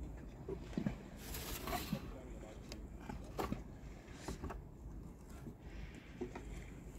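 Fishing tackle being handled at the bankside: scattered light knocks and clicks, with a brief rustling hiss about one and a half seconds in.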